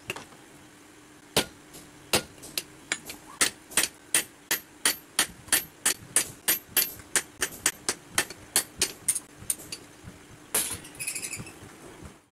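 Hand hammer striking a red-hot steel adze (basula) blade on an iron anvil during forging: a steady run of sharp metallic blows, about three a second, starting about a second and a half in, with a few scattered blows near the end.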